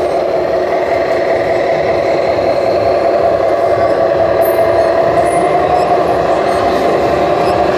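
Radio-controlled scale model MAN truck driving, with a steady whining drone that rises slightly about five or six seconds in.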